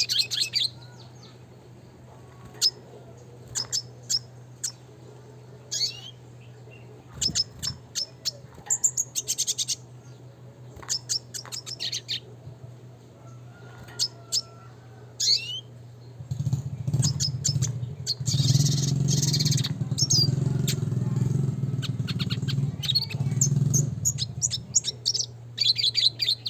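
Red siskin chirping and calling in short, scattered high bursts, with a denser, louder stretch of sound from about two-thirds of the way in until near the end. A steady low hum runs underneath.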